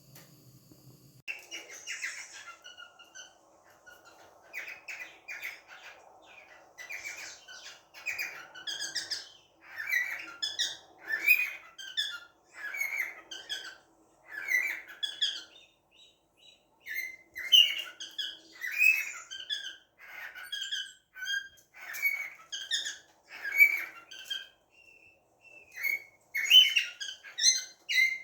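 Cockatiels chirping, a run of short calls one after another starting about a second in.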